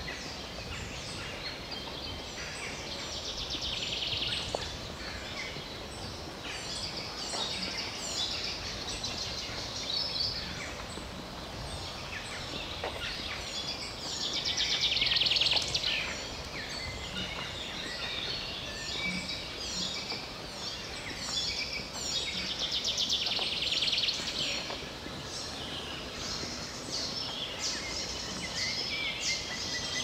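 Several songbirds singing, with one bird's loud, fast trilling phrase returning about every ten seconds over a steady low background noise.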